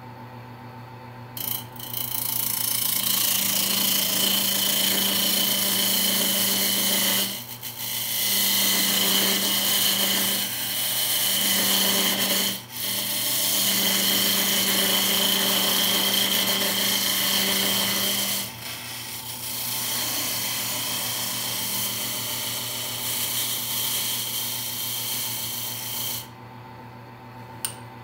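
Wood lathe running with a steady hum while a hand turning tool cuts into the end of the spinning wooden box blank. The cut makes a loud, hissing scrape as shavings come off, broken by a few short pauses when the tool is lifted, lighter in the later part, and stopping about two seconds before the end. A single click follows near the end.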